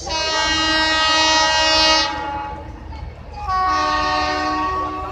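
Indian Railways WAP-4 electric locomotive horn sounding two long blasts: the first lasts about two seconds, and the second starts about three and a half seconds in and is still sounding at the end.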